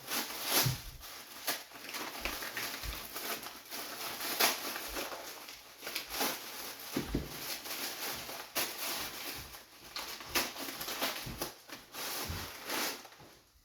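Irregular light clicks, knocks and rustling of objects being handled, likely the plastic training handles being turned over and tried out.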